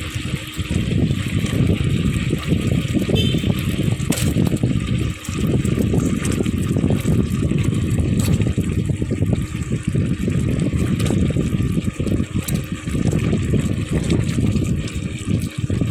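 Tofu cubes frying in hot oil in a pan, with continuous bubbling and sizzling.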